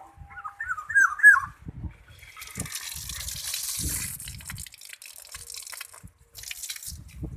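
A black-naped oriole gives a few short whistled calls, then water is sprayed with a hissing sound for about four seconds, with a brief second spray near the end, as the bird is bathed.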